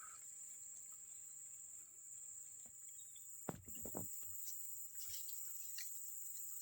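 Insects in a rice field, a steady high-pitched drone, with a few short knocks about three and a half to four seconds in.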